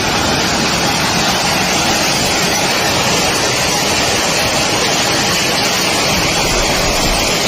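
Hail and heavy rain pelting down in a steady, dense hiss.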